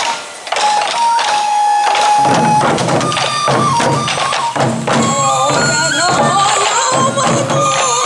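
Sansa odori music: many shoulder-slung taiko drums beaten in a fast, even rhythm under a held, stepping flute melody. The drumming swells in about two seconds in.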